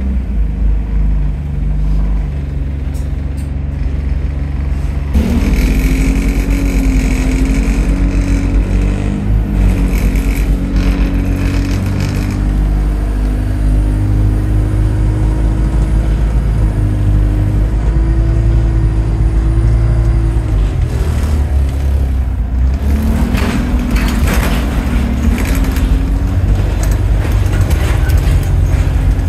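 Diesel bus engine heard from on board, running under load. About five seconds in it pulls harder and its note rises, then climbs and settles in steps as it gathers speed, and it rises again a little after twenty seconds.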